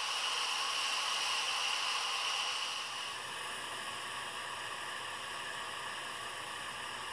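Fagor Futuro pressure cooker venting steam through its operating valve set to quick release: a steady hiss that eases a little about three seconds in as the pressure falls.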